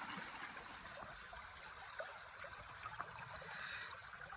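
Shallow creek water trickling steadily over rocks and gravel, faint.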